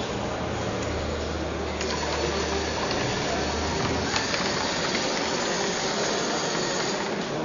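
Small mobile robot's electric drive motors and servos whirring as it drives and turns, with a couple of sharp clicks.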